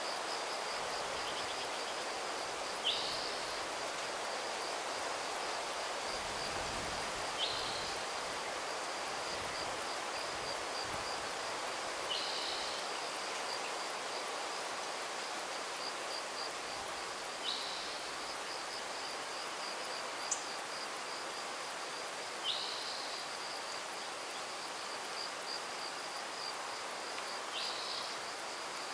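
Steady, high, rapidly pulsing trill of an insect, with a short falling call repeating about every five seconds, like a bird's, over a soft even hiss of breeze.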